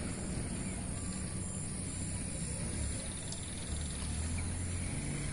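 Outdoor ambience: a low steady rumble, with faint insect chirping high up repeating about twice a second.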